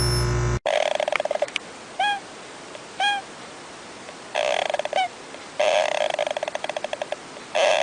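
Animal calls: several bursts of rapid, pulsed chattering, each about a second long, with two short single chirps between them.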